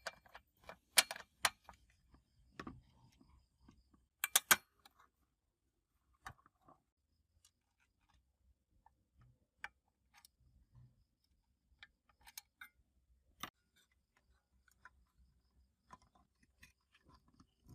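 Sharp clicks and taps: a quick cluster near the start and another about four seconds in, then scattered light ticks.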